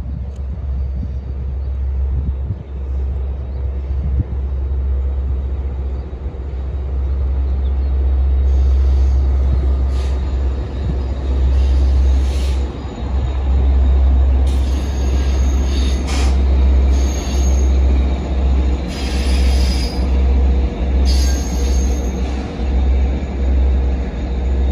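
EMD DE30AC diesel locomotives and an inspection car crossing a steel viaduct. Their rumble builds from about eight seconds in. In the second half metallic wheel squeal and clicks from the rails join it, and the rumble rises and falls about once a second.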